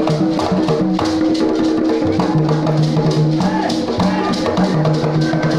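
Imbalu dance music of the Bagisu: drums beating a fast, steady rhythm under a held low tone, with voices singing.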